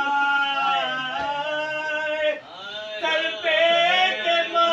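A man's voice chanting a mourning lament (noha) in long, held, wavering notes that glide up and down, with a brief break for breath about two and a half seconds in.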